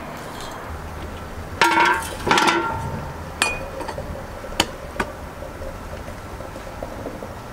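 Porcelain teapot and metal tea things clinking: two sharp ringing clinks about half a second apart, then a few lighter clicks and taps.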